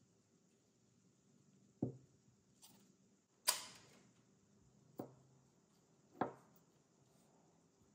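Light clicks and taps of Miss Dior solid perfume stick cases and their silver caps being handled, pulled apart and set down on the table. There are about five short, sharp ticks spread over several seconds, and the loudest comes about three and a half seconds in.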